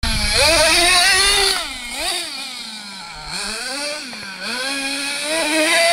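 The twin Kyosho GXR28 nitro engines of a Kyosho Giga Crusher RC monster truck revving up and down as it drives, the pitch rising and falling over and over. It is loudest at the start and again near the end, and fainter in the middle as the truck runs farther off.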